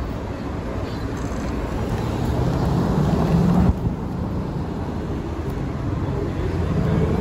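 Street traffic at a busy intersection: car engines running and passing. A low engine note builds and then drops off suddenly about halfway through.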